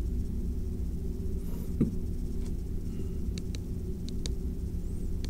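Steady low electrical hum of the recording's background, with one short click just under two seconds in and a few fainter ticks after it.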